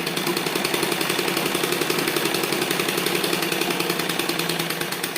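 Sewing machine running at speed and stitching, its needle mechanism making a fast, even run of strokes that eases off right at the end. It is a freshly cleaned and reassembled machine being test-stitched, and it is sewing properly.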